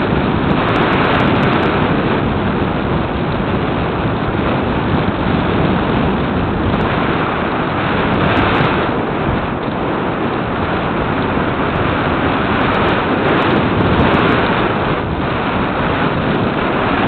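Steady rush of airflow buffeting the microphone of a camera mounted on a radio-controlled glider in flight.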